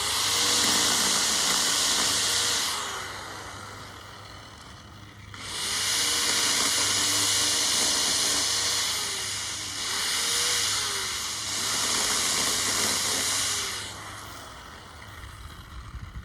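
Chainsaw cutting wood in long bursts: a loud hissing run of about three seconds, a lull, then a longer run of about eight seconds that dips twice.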